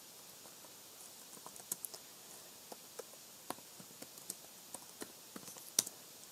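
Typing on a computer keyboard: light, irregular key clicks, with one sharper click about six seconds in.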